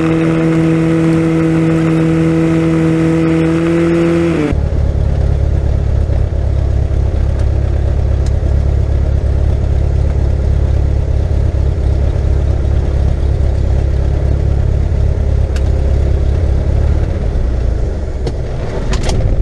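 Cessna 172's piston engine and propeller running, heard from inside the cabin: a steady pitched drone that sags as the throttle comes back about four seconds in, then a lower, rougher idle. Near the end the engine winds down and stops as it is shut down after taxiing in.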